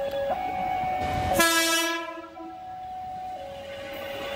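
Electric commuter train's horn sounding one blast of about a second, a little over a second in, over an electronic warning signal that alternates between two tones; rail running noise from a passing train builds near the end.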